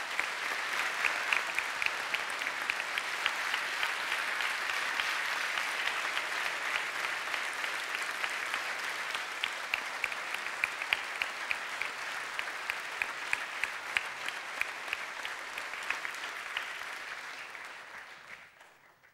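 Theatre audience applauding steadily, with single claps standing out from the clapping, then dying away over the last few seconds.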